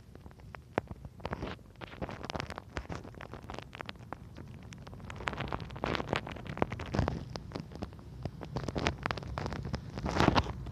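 Handling noise of a phone being held and moved: irregular clicks, taps and rubbing crackles from fingers on the body of the phone, thicker near the end, over a low steady hum.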